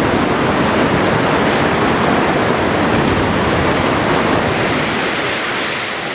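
Steel-clad boiler house of a coal-fired power station collapsing after explosive demolition charges: a continuous loud rushing crash of falling steel and cladding, easing off slightly near the end.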